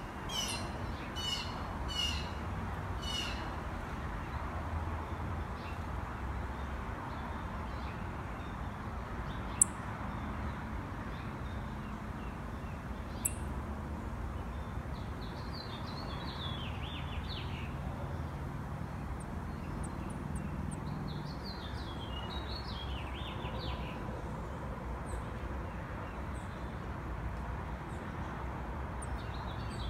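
Songbirds calling at a backyard feeder: a run of repeated high calls, about two a second, in the first few seconds, then scattered twittering chirps through the middle and later part, over a steady low outdoor rumble. Two sharp clicks come about ten and thirteen seconds in, the first the loudest sound.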